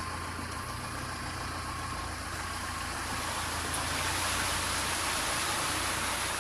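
A motor vehicle's engine running steadily, with a rushing hiss that grows louder about four seconds in.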